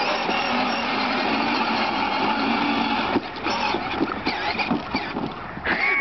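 Power Wheels battery-powered ride-on four-wheeler driving across grass, its electric motors and plastic gearboxes whirring. The whir is steady at first, then turns uneven about three seconds in, with short rattles and knocks.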